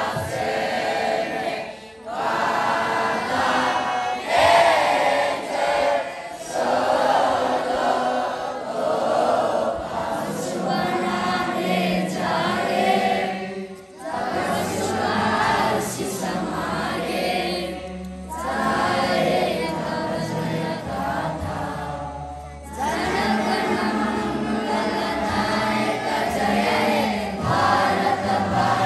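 A large group of young boys singing together in unison, phrase after phrase with short breaks between them: an assembly prayer or song.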